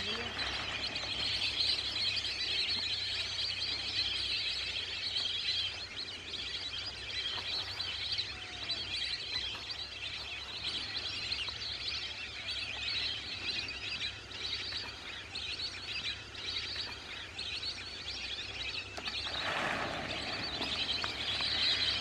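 A large flock of lesser whistling ducks calling: a dense, continuous chorus of high, shrill twittering whistles. Near the end there is a brief louder rush of noise.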